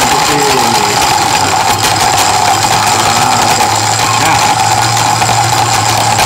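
Countertop blender's motor running steadily on its ice-crush setting, the blades breaking up ice cubes in a glass jug of coffee, banana and dates. A deeper hum joins about four seconds in.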